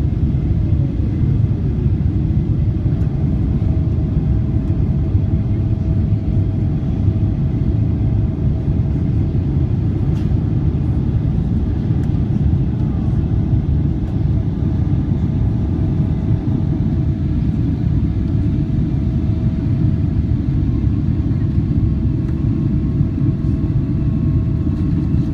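Cabin noise of a Boeing 777-300ER climbing after take-off: the steady roar of its GE90-115B turbofan engines and the airflow, with a thin steady whine held above it.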